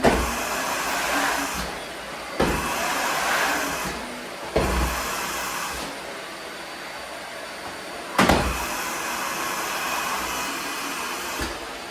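Vacuum cleaner running in surges as it is pushed and pulled, a sharp knock starting each surge about every two to four seconds.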